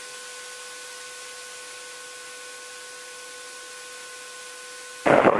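Steady hiss with a faint, constant electrical whine of a few steady tones, heard on the aircraft's radio and intercom audio feed between transmissions. About five seconds in, a much louder rushing noise cuts in suddenly.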